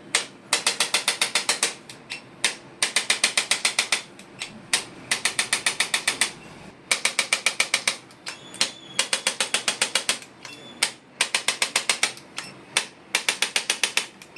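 Handheld percussion instrument firing rapid mechanical clicking taps, about eleven a second, in seven short bursts of about a second each with brief pauses between, as it works over tight back and buttock muscles.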